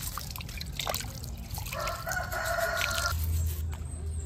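A rooster crows once, a held call of a little over a second starting about two seconds in, with small drips and clicks of water.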